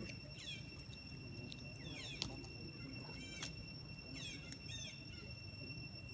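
Outdoor ambience: short descending bird chirps repeated every half second or so over a steady high-pitched insect drone, with a couple of sharp clicks.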